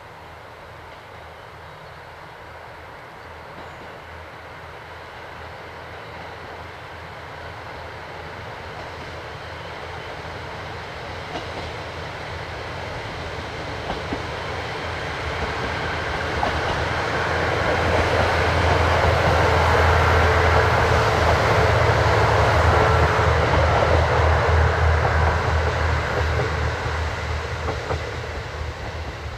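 Diesel train approaching and passing, its engine humming under the rumble of wheels on rail. It grows steadily louder to a peak about two-thirds of the way in, then starts to fade.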